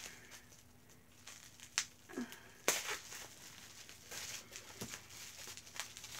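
Plastic bubble wrap crinkling faintly as it is handled and cut free of tape with scissors, with a few sharp clicks of the scissor blades.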